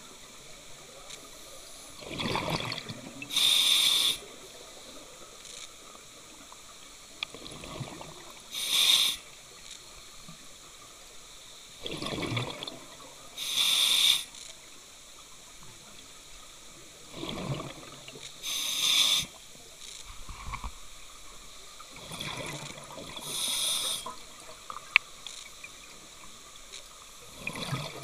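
Scuba diver breathing through an open-circuit regulator underwater: a rough rush of air and bubbles followed about a second later by a bright hiss, repeating about every five seconds, five times and starting a sixth near the end.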